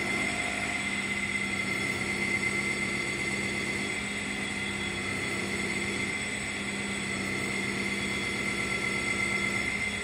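Baker band sawmill's hydraulic power unit running: a steady hum with a constant high whine.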